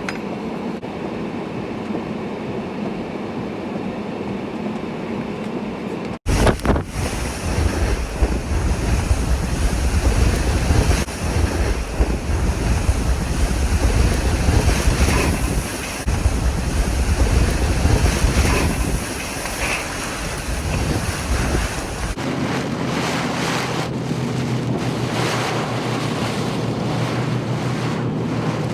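Strong storm winds gusting hard against the microphone, heard in three spliced shots. First comes a steadier rushing wind. About six seconds in, heavy gusting buffets take over. From about 22 seconds in, a steadier rush continues over a low steady hum.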